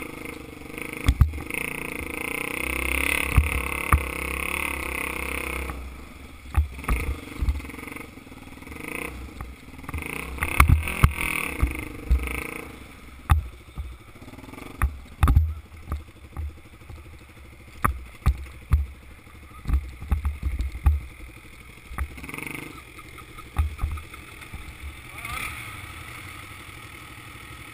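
Dirt bike engine running on a rough trail, louder for the first several seconds and then easing off, with many sharp knocks and thumps as the bike jolts over the ground.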